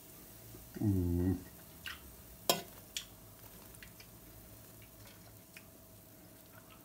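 Metal fork clicking and scraping against the nonstick air fryer basket while turning pieces of cooked chicken to check them, a few sharp taps with the loudest about two and a half seconds in. A short hummed voice sound comes about a second in.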